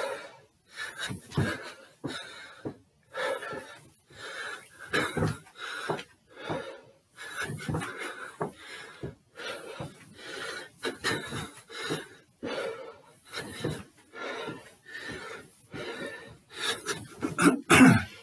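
A man breathing hard from exertion, in quick heavy breaths about once a second, with his footsteps on the stairs as he climbs.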